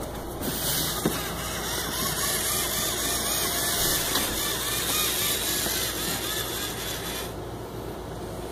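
LEGO Mindstorms EV3 robot car's electric drive motors whirring as it drives on carpet, with a pitch that wavers up and down over and over, dying away about seven seconds in.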